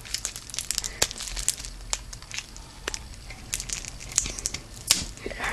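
Plastic wrapping crinkling and crackling in quick, irregular bursts as it is pulled off a deck of trading cards.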